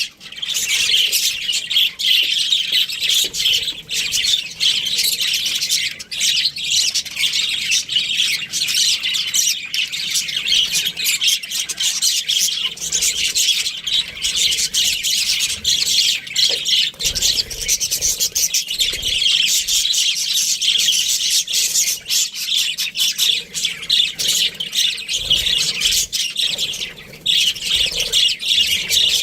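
Budgerigars chirping and squawking continuously in a rapid, high-pitched stream, easing briefly near the end.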